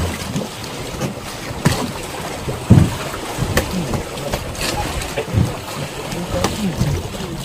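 Wind and sea noise on a small fishing boat, with irregular knocks and thumps on board, the loudest about three seconds in.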